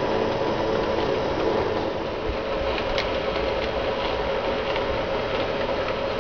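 An OO gauge model steam locomotive, an SE&CR P-Class body on a ready-to-run chassis, running along the track hauling coaches. Its motor and gears give a steady hum, with a few faint clicks now and then.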